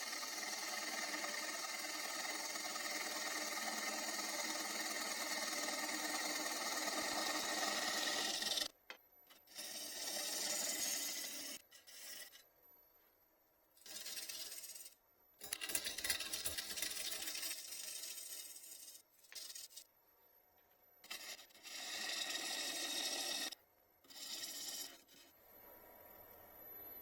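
A turning tool cutting a spinning maple blank on a Record Power Coronet Herald wood lathe, with a steady rasping shave. It is one continuous cut for about the first eight seconds, then a run of shorter cuts broken by quiet gaps.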